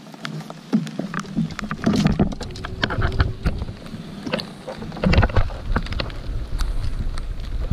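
Rain falling on a kayak and the camera, heard as many irregular tapping drops, with a low uneven rumble that starts about a second in and gets heavier after about five seconds.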